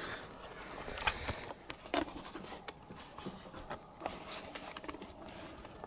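Handling noise of a handheld camera being moved about: scattered small clicks, scrapes and rustles.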